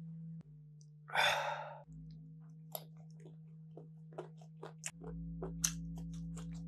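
A loud, breathy exhale about a second in, then a run of short, quick wet mouth clicks and smacks of eating as rice and a tomato slice are eaten by hand, over a steady low electrical hum.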